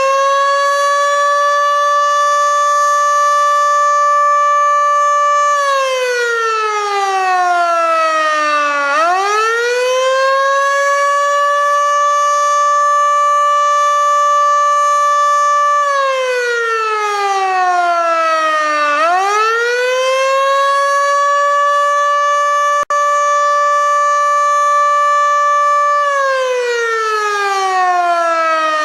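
Federal Sign & Signal Model 2 electromechanical warning siren sounding the Attack signal: a loud tone that winds up over a second or two, holds steady for about five seconds, then slides down for about three seconds before winding up again. It repeats about every ten seconds, giving three cycles.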